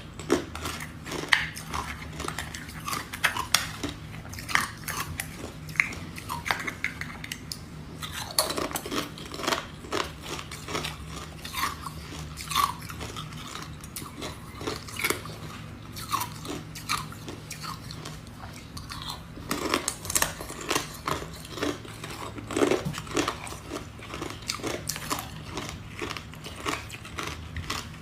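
Ice being bitten and chewed close to the microphone: a steady run of irregular, crisp crunches and cracking snaps. A faint low hum runs underneath.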